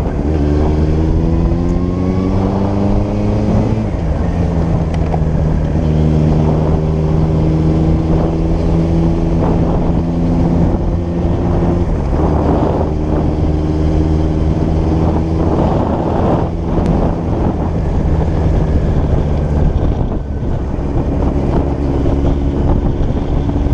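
Motorcycle engine accelerating, rising in pitch for about four seconds until an upshift drops the revs, then running at a steady pitch with another change of revs about halfway through. Wind rushes over the microphone throughout.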